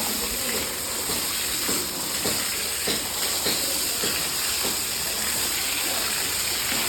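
Water spraying from a hose onto a cow during a wash, a steady hiss with soft splashes repeating about every half second.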